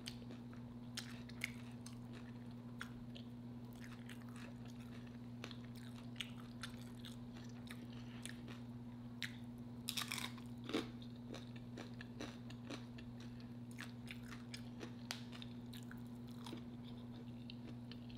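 Close-miked chewing and crunching of homemade seafood Alfredo nachos: irregular small crunches and mouth clicks, with a louder cluster of bites about ten seconds in, over a steady low hum.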